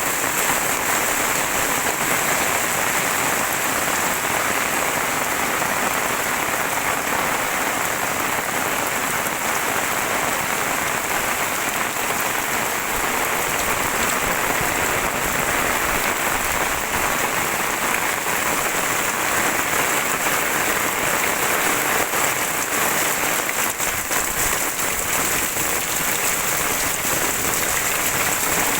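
Super heavy rain falling steadily: a dense, even hiss of rain on surfaces that holds constant throughout.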